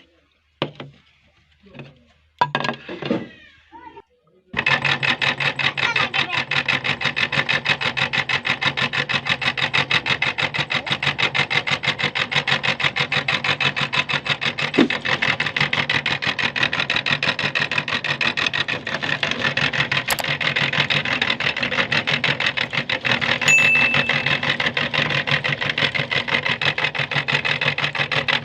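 Electric meat grinder switched on about four and a half seconds in and running steadily, a rapid even whirring over a low hum. A few knocks and clicks of handling come before it starts.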